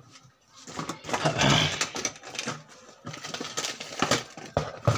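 Handling noise from LED bulb parts and tools being moved about and set down on a cardboard-covered table: scattered clicks and knocks, with a stretch of rustling about a second in.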